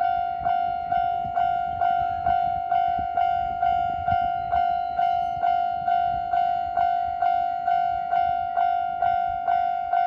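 Japanese railway level-crossing warning bell ringing in steady, rapid strikes, a little over two a second, each ding decaying before the next, with a low rumble beneath.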